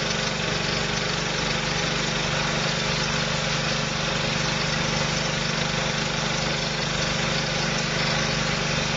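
V-Tex texture sprayer running steadily, its hydraulic motor turning in reverse so the pump rotor draws the new fluid tube in.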